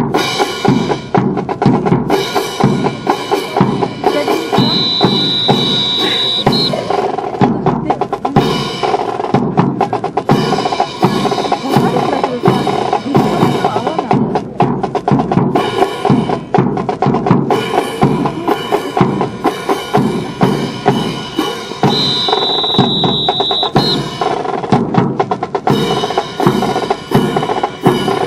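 Marching percussion section playing a fast drum cadence: snare and bass drums struck in a dense, rapid rhythm with rolls and rimshots. A high, steady piercing tone sounds twice over the drumming, each time for about two seconds.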